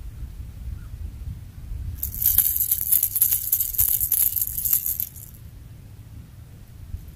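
Fishing reel being cranked for about three seconds, a high whirring hiss with quick, irregular clicks, over a steady low wind rumble on the microphone.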